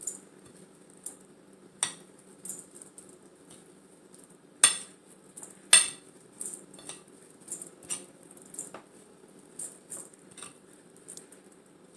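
Metal fork clinking and scraping against a ceramic plate while stirring a thick oat and peanut-butter mixture. The clicks are irregular, roughly one or two a second, with the two loudest knocks about a second apart near the middle.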